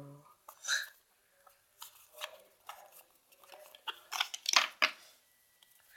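Yu-Gi-Oh trading cards being handled: faint, scattered short scrapes and flicks of card stock sliding over one another, bunched together about four to five seconds in.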